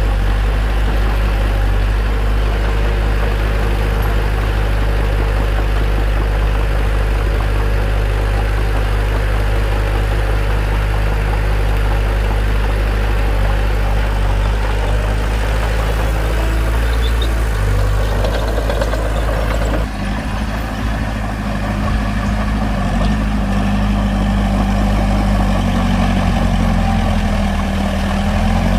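Bulldozer diesel engine running steadily. The engine note shifts abruptly about two-thirds of the way through, then rises a little in pitch near the end.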